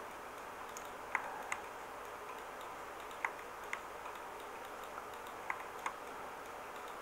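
Computer mouse button clicking in three pairs: press and release a third of a second apart, as each short sculpting stroke is dragged. Faint hiss underneath.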